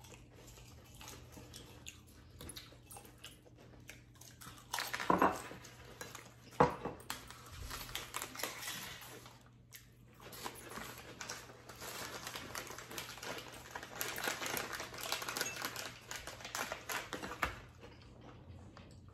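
Eating noises at a countertop: chewing, sipping, and glasses and bowls clinking and being set down, with two sharper knocks about five and six and a half seconds in and a busier stretch of scratchy, clicking mouth and handling noise from about ten seconds in.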